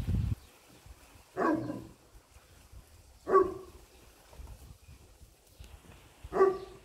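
A dog barking: three single short barks a couple of seconds apart.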